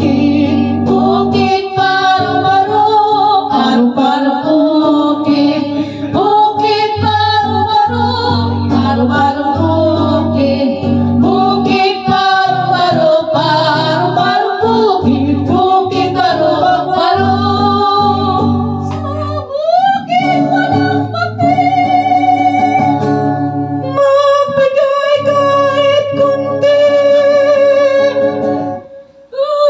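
Live singing into microphones by women's and a man's voices, accompanied by an electric guitar. The music drops out briefly near the end.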